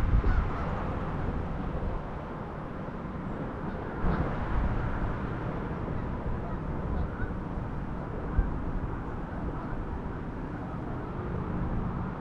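Outdoor ambience: wind on the microphone with a steady low rumble.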